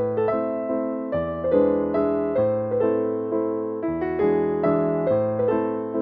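Background music on a piano-like keyboard: notes struck one after another, each fading away, over a low note that changes about every three seconds.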